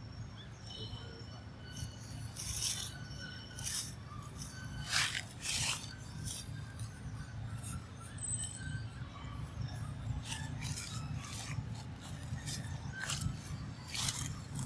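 Scratchy rustling and rubbing in short, irregular bursts as a young monkey pulls and picks at a crocheted cloth on a stone, over a steady low rumble.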